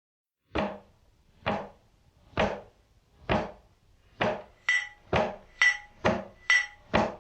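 Percussion intro of a background music track: sharp drum-like strikes about once a second that quicken to about two a second partway through, with a ringing bell-like tone joining on alternate beats.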